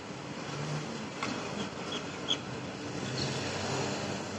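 Road traffic moving off over a railway level crossing: car engines and tyre noise, a van passing close near the end, with a few short high chirps over it.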